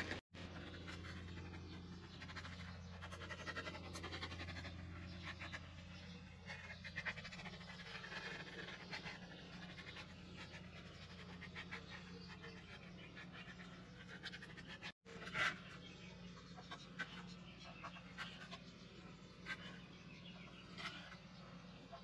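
Faint scraping and tapping of a small stir stick mixing two-part epoxy on a wooden board, over a steady low hum, with one louder knock about fifteen seconds in.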